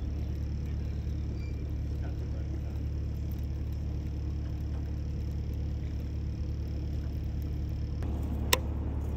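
A steady low rumble, with one sharp click near the end.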